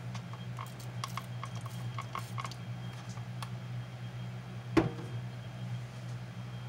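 Plastic trigger spray bottle clicking and spraying in several short squirts onto a cotton swab, then the bottle set down with one sharp knock in a stainless steel sink, over a steady low hum.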